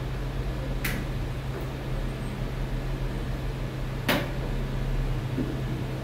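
A steady low hum with two sharp clicks about three seconds apart.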